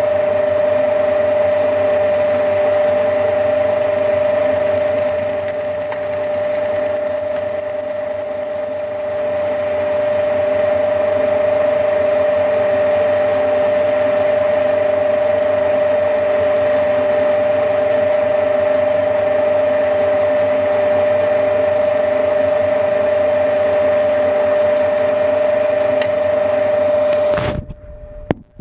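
Milling machine running with a steady whine while milling a model traction engine's front hub. The sound cuts off suddenly near the end.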